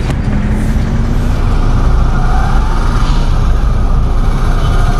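Road traffic sound effect: a steady low rumble of passing motor vehicles, with faint engine pitches sliding past.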